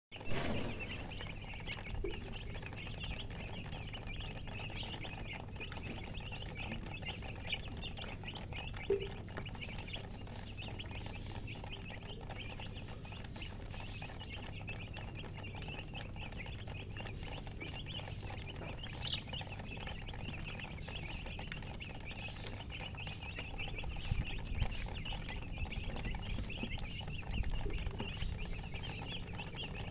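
A brood of young chicks peeping nonstop, many short high chirps overlapping into a continuous chorus, with a few low thumps near the end.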